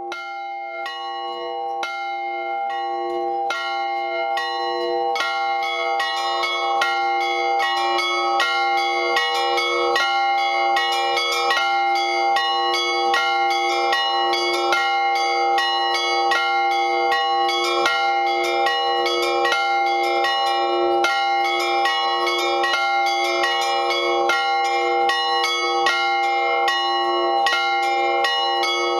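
Peal of four church bells, three cast by the Liepājas Metalurgs works and one of old casting, rung together in a quick, steady pattern. A low bell sounds about once a second under faster strikes of the smaller bells. The ringing builds up over the first few seconds, then holds even.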